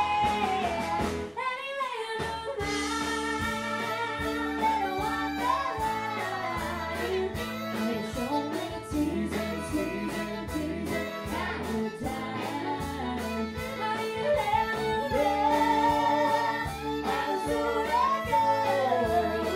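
A woman singing a country song into a microphone over amplified band music with guitar, bass and a steady beat. The bass drops out briefly about a second and a half in.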